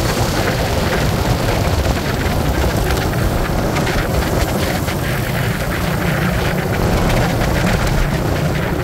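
A vehicle's steady running noise, heavy in the low end, with wind buffeting the microphone throughout.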